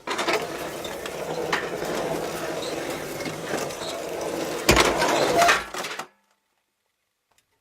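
Dense clinking and clattering of small hard objects, with a louder crash about five seconds in; the sound cuts off to silence about six seconds in.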